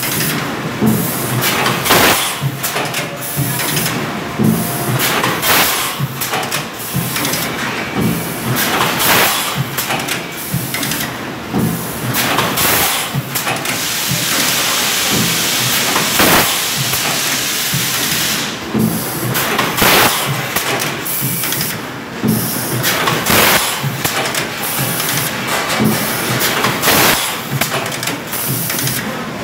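Four-cavity fully automatic PET stretch blow moulding machine running: pneumatic cylinders clack and knock at irregular intervals, with compressed air hissing. About halfway through a longer hiss of air lasts several seconds.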